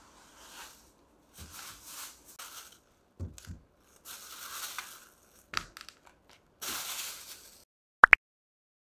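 Plastic bags rustling and crinkling in bouts as packaged meat trays are pulled from a cloth shopping bag, with two soft thumps a little after three seconds as a tray is set on the glass tabletop. Two sharp clicks just after eight seconds.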